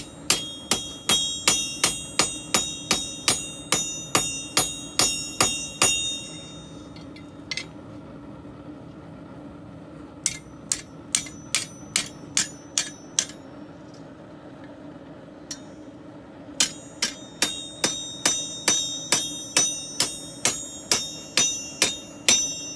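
Hand hammer striking a steel messer blade on an anvil in three runs of quick, even blows, about two to three a second, each blow ringing brightly.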